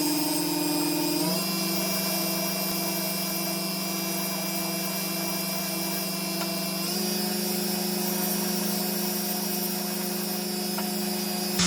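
Electric grinder motor running steadily while a knife blade is ground, its hum stepping slightly up in pitch about a second in and again about seven seconds in.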